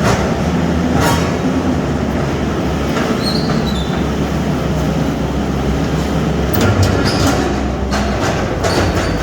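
A skid steer running hard with a steady diesel drone, broken by metal clanks and a brief high squeal about three seconds in.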